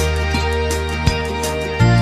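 Instrumental song intro: sustained chords over a low bass note, with light percussive hits about every three-quarters of a second and a change of bass chord near the end.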